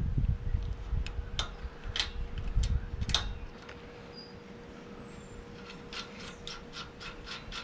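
Small metal clicks and taps as a nut and washer are fitted by hand onto a sway bar end-link bolt, with a quicker run of clicks near the end as the nut is spun down the thread.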